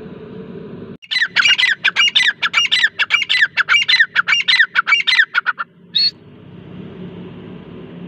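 Grey francolin calling: a fast run of high, sharp, repeated notes, about five a second, lasting some four seconds, followed by one short note. A steady low background noise is heard before and after the calling.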